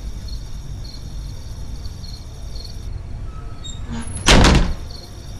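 A short burst of loud banging on a wooden door about four seconds in, a few quick strokes within half a second, over a steady background of crickets.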